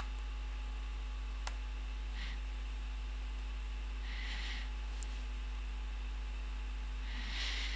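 Steady electrical hum and hiss from the recording setup, with a sharp click about a second and a half in and a few soft puffs of breath.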